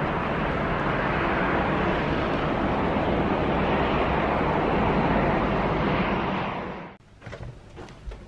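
Steady outdoor rushing noise that fades and stops about seven seconds in, followed by faint clicks and rustles of handling.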